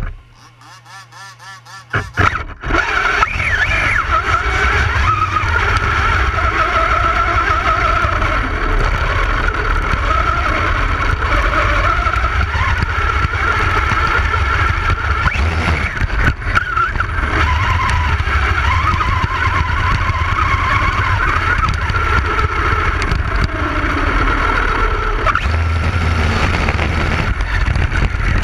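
Red Cat RC buggy driven at speed across sand. Heard from the GoPro on the car itself, the motor runs hard with a wavering pitch over heavy wind rumble. It is quieter for the first two seconds, then the car takes off and the sound stays loud.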